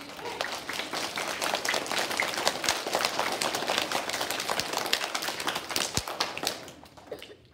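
An audience of young children clapping, a dense patter of many hands, dying away near the end.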